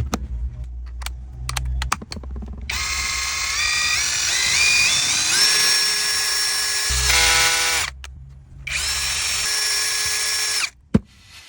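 Cordless drill motor whining as it spins up, its pitch climbing in steps as the trigger is squeezed. It stops briefly, runs again, then cuts off with a click near the end.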